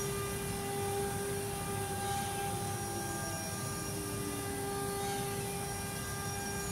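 CNC machine running, its spindle giving a steady high whine with a ladder of overtones over a motor hum, and a short falling tone about halfway through.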